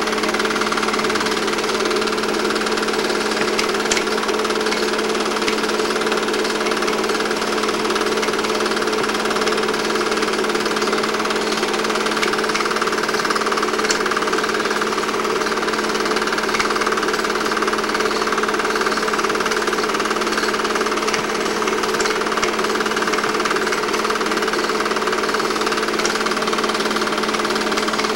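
8mm film projector running: a steady, rapid mechanical clatter from the film-advance mechanism over a constant hum.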